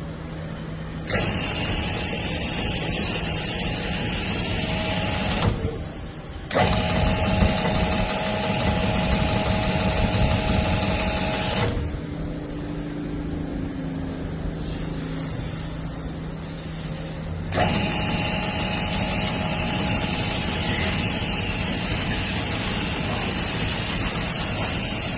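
3 HP high-pressure washer running steadily, its motor and pump humming under the hiss of the water jet from the spray gun. The spray cuts out briefly near the start, again around six seconds in, and for about five seconds in the middle, while the machine keeps running.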